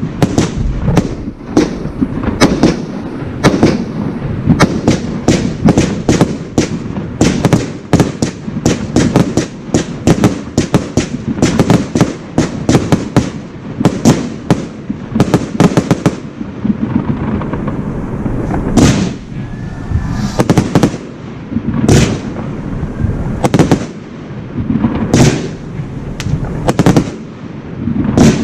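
Professional aerial fireworks display: rapid volleys of bangs and crackling for the first half or so, thinning to slower, spaced single shell bursts about every three seconds.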